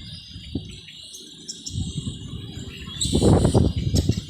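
Outdoor background of small birds chirping over a steady high insect buzz. A short burst of louder noise comes about three seconds in.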